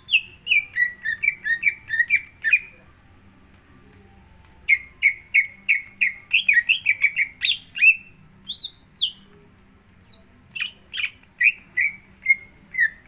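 Green leafbird (cucak hijau) song used as a bird-keepers' lure recording: rapid runs of sharp, mostly falling chirps, breaking off for about two seconds after the opening run and then resuming.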